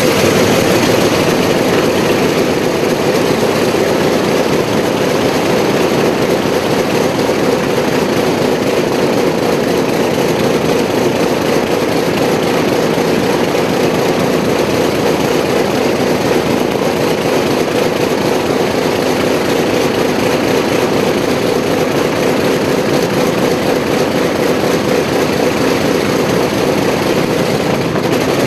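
Douglas A-1 Skyraider's Wright R-3350 eighteen-cylinder radial engine idling steadily, just after catching on a cold start.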